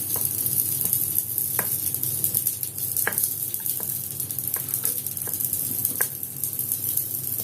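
Red chilli chutney sizzling in hot oil in a pan as it is stirred, with a few light clicks of the spoon against the pan.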